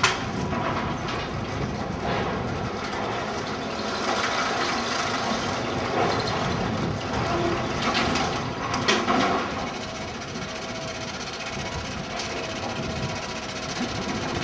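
Chinese steam locomotive and a train of open goods wagons moving slowly, a steady rumbling with occasional clanks and knocks, loudest from about four to nine seconds in.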